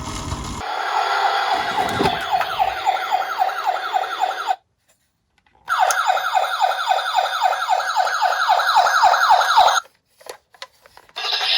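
Electronic siren of a battery-powered toy emergency vehicle: a fast, repeating falling sweep, about five a second. It cuts out for about a second midway, resumes, and stops near the end, followed by a few faint clicks.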